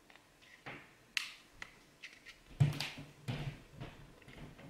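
Sharp, scattered clicks and taps of metal tools and lock parts as a tight part of a Mul-T-Lock gear stick lock is worked loose, with a brief low voiced strain about halfway through.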